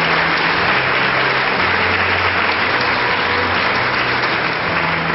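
An audience applauding steadily: sustained clapping from many hands.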